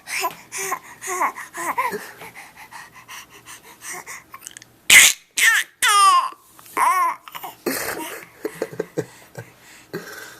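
Baby babbling and squealing in short, high-pitched bursts, with a sharp loud outburst about halfway through.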